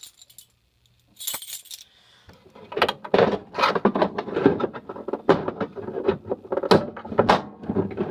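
Keys jangling and clicking as a fire alarm pull station is unlocked and reset with its key. The first second or so is quiet. Then comes a brief rustle, then a run of irregular metallic jingling and clicks.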